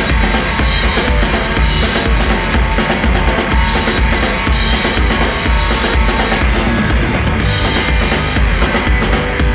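Studio rock recording: a full band with drum kit, kick drum and snare driving a steady beat over heavy bass.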